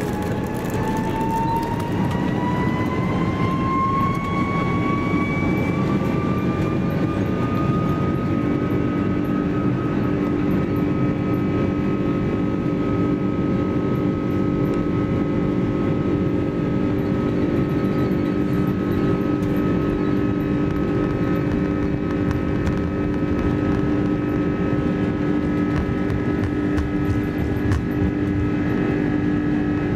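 Airbus A330's turbofan engines spooling up to takeoff thrust, heard from inside the cabin during the takeoff roll: a whine rises in pitch over the first eight seconds or so and then holds steady over a loud, constant rush, with a lower steady hum joining at about the same point.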